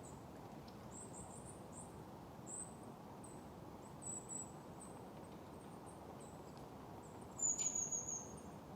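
Outdoor ambience: a small bird's very high, thin chirps repeating over a steady low hiss, with a louder falling high call about seven and a half seconds in.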